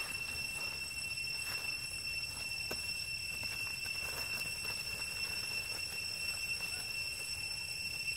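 A steady high-pitched whine with overtones runs throughout, over faint scattered rustles and scuffs of macaques scrambling across dry leaf litter.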